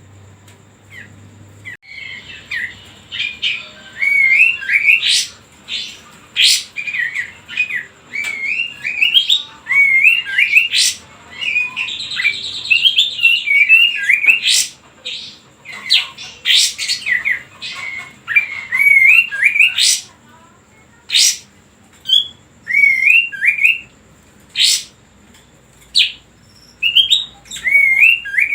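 Kapas tembak songbird calling in quick, repeated short warbled phrases that swoop up and down, mixed with sharp high chips and pauses between bursts; this is the song played as a lure to set other birds calling.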